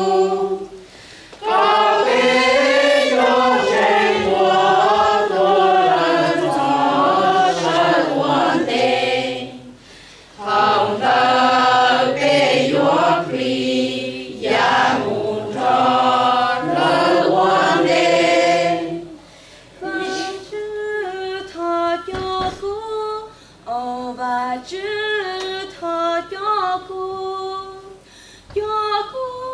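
Mixed choir of men and women singing a Hmong Christian hymn in phrases, with short breaks between them. From about twenty seconds in, fewer voices carry on, more quietly.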